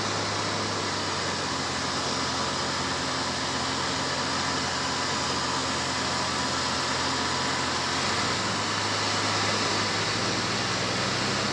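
A 4x4's engine running steadily under a constant hiss, its low note shifting slightly about eight seconds in.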